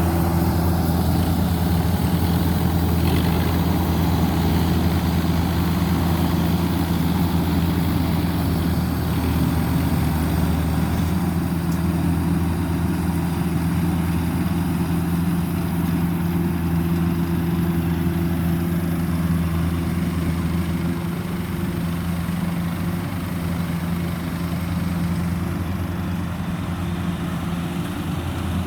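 Diesel engine of a rice combine harvester running steadily at an even pitch, with the machine's rattle and hiss of harvesting over it; the engine note eases a little in loudness about two-thirds of the way in.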